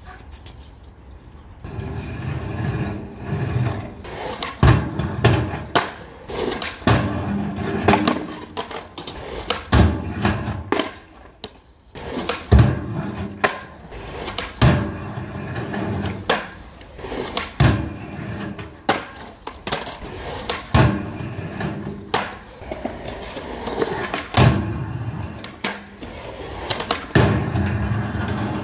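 Skateboard wheels rolling over concrete, with repeated sharp clacks of the board hitting the ground and the edge of a fun box every couple of seconds.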